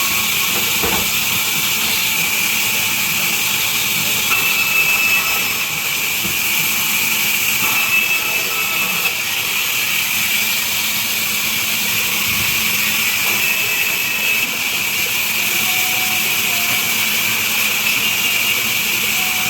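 Industrial vertical band saw running and cutting through a large wooden log: a steady, loud hiss with brief faint high whines now and then.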